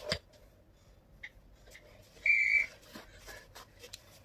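One steady electronic beep, about half a second long, a little over two seconds in: a workout timer's cue. Light taps and a short thump at the start from the exerciser moving on the mat.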